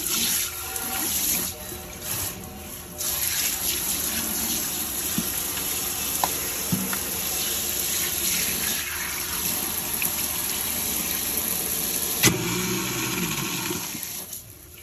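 Kitchen faucet sprayer running onto a stainless steel sink, the water splashing and draining. The spray dips for a moment early in the stretch. Near the end there is a sharp click, then a low hum for a second or two, and the water fades out.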